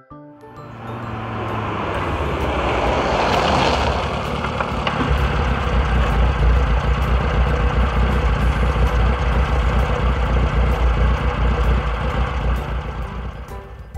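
Jeep engine sound effect: the engine noise swells over the first few seconds, then runs steadily with a deep rumble and tapers off near the end.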